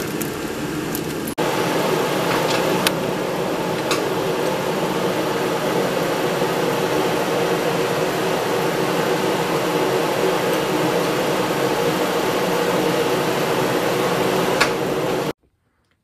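Steady mechanical hum with a few sharp clicks scattered through it, stepping up in level about a second in and cutting off suddenly near the end.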